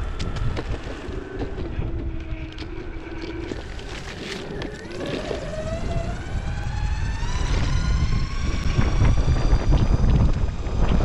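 Lacroix DSS50+ electric skateboard's motors whining, the pitch rising steadily for a few seconds about midway as the board picks up speed, over a low rumble of wheels on asphalt and wind on the microphone that grow louder toward the end.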